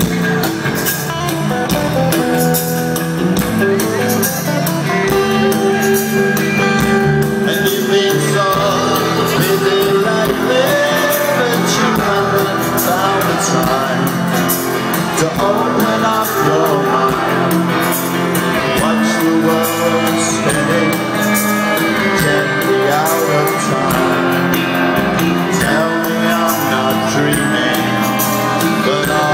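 Rock band playing live through a PA, with electric guitars, drums and a lead vocal.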